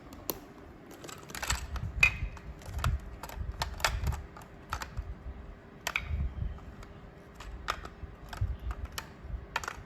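Plastic Lego Duplo bricks clicking and clattering as they are handled and pressed together, in quick irregular clicks with occasional low knocks.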